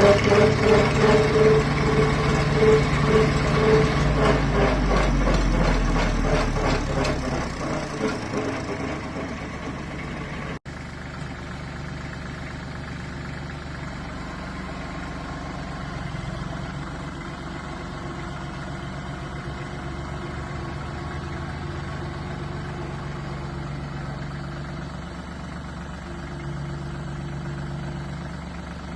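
Diesel engine of a Branson compact tractor running with a rapid, even clatter, loud at first and easing off over the first several seconds. After a brief cut-out about ten seconds in, it idles steadily and more quietly.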